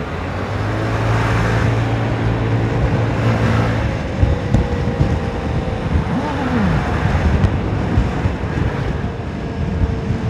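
Honda Forza 300 scooter's single-cylinder engine pulling under open throttle through a quiet exhaust, with wind rushing over the microphone. The engine tone is steady for the first few seconds, then turns rougher, with scattered knocks from the road.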